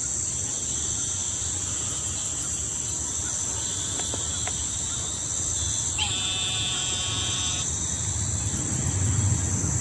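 Steady high-pitched chorus of insects in swampy woodland, with a low rumble underneath. About six seconds in, a pitched call with several overtones sounds for about a second and a half.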